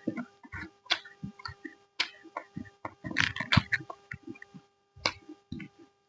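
Close-miked chewing: irregular crunchy, wet mouth clicks and smacks as fried food and curry are eaten, with a busy run of crunching about three seconds in, over a faint steady hum.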